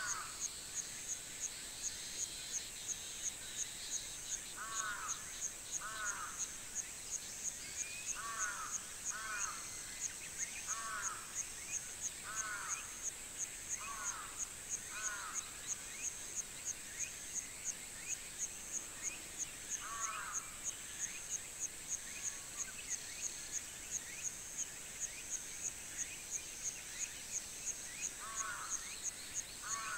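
Countryside summer-morning ambience. An insect chirps steadily in a very high pulse, about two a second, over a continuous high insect hiss. A bird gives short, downward-slurred calls, often in pairs, about a dozen times, and other birds twitter faintly.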